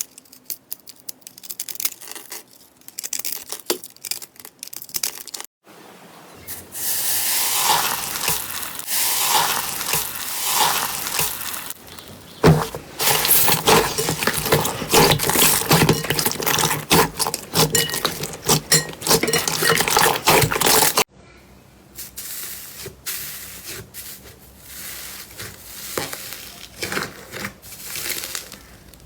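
Slime being handled: a dense run of sticky crackles, clicks and squelches, in several short clips joined by abrupt cuts. It is loudest in the middle section.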